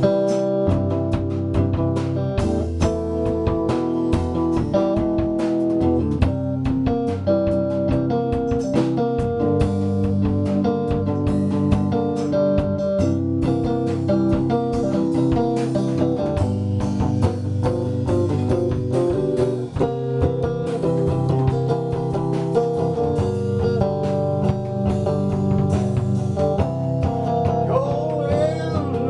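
Electric guitar playing a continuous passage of chords and picked notes that ring out and change steadily, with no pause.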